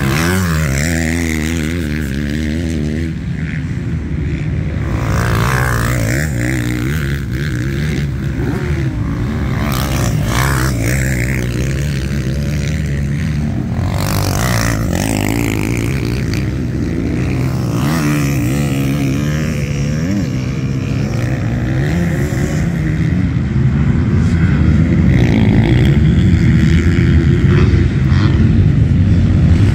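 Dirt bike engines running on a motocross track, their pitch wavering up and down as the riders work the throttle, over a constant low engine drone.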